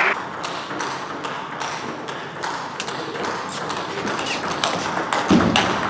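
Table tennis ball being hit by bats and bouncing on the table: a string of sharp, irregular taps. Near the end there is a louder dull thump.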